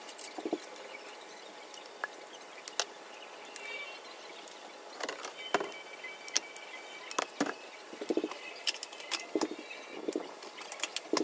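Cooking sounds at a gas stove: scattered taps, clicks and short knocks as seasoning and sliced rice cakes are added to a small stainless saucepan of simmering broth, over a steady low hiss.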